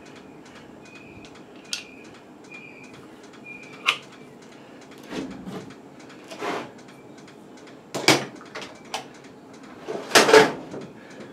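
An air hose's metal fittings and adapters being handled and coupled, with light clicks and taps of metal on metal and a few short hissing bursts, the loudest near the end.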